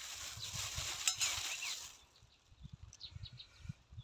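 Outdoor ambience: a steady hiss that cuts off abruptly about two seconds in, with faint bird chirps through and after it.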